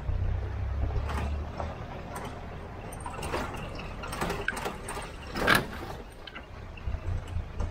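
4x4 driving over a rough dirt track, heard from a camera mounted on the outside of the vehicle: a steady low rumble with irregular knocks and rattles as it bumps along, the loudest knock about five and a half seconds in.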